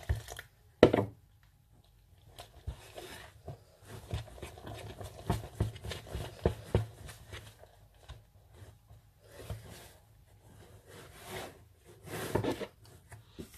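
Fingers mixing flour and water in a plastic bowl for pizza dough: soft, irregular rubbing and scraping with small clicks against the bowl, after one sharp knock about a second in.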